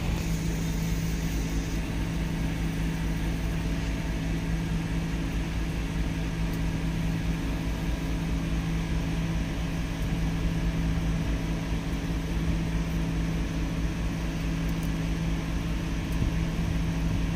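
Steady mechanical hum with a constant low tone that does not change.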